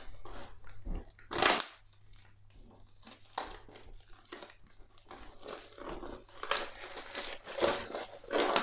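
Plastic shrink wrap on a cardboard box crinkling and tearing as it is peeled off by hand, in uneven bursts, the loudest about a second and a half in.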